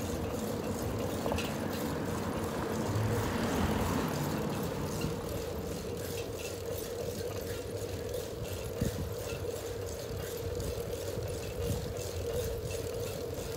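Riding a bicycle along a town street: steady wind and tyre noise with a constant hum underneath, swelling for a couple of seconds about three seconds in.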